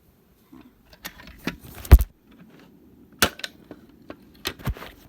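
Sharp clicks and knocks from handling a fire alarm pull station, the loudest a snap about two seconds in.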